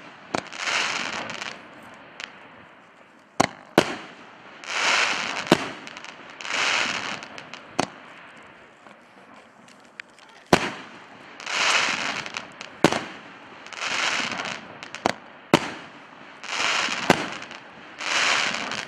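A 50mm 19-shot firework cake (Fantazia MFS-501) firing: sharp bangs every second or two, several of them followed by about a second of crackling hiss from the bursting shells.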